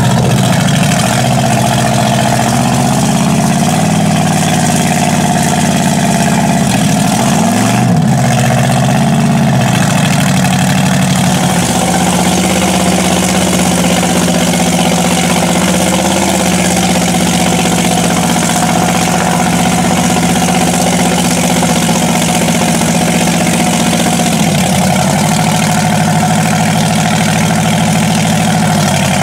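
Mud-bog pickup's engine running hard through open exhaust pipes as its tractor tires churn through deep mud, holding a steady high pitch. The pitch dips and swings back up about a quarter of the way in.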